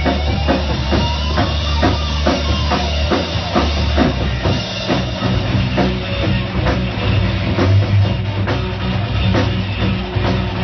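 Live rock band playing an instrumental passage, with the drum kit loudest and a steady beat over sustained low bass notes.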